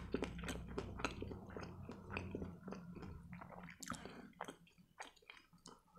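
A man chewing a mouthful of food with his lips closed, close to the microphone: soft wet smacks and clicks that thin out near the end.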